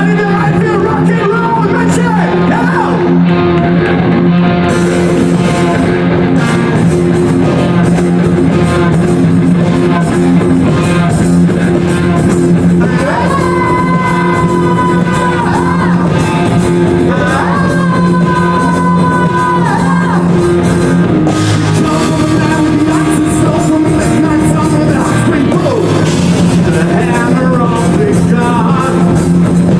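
Rock music with electric guitar and a singer, loud and steady throughout.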